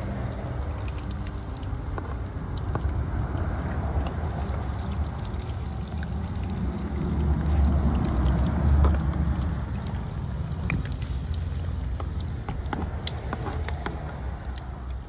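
Fish frying in hot oil in a wok: a steady bubbling sizzle with scattered sharp pops and crackles, over a low rumble that swells for a moment just past the middle.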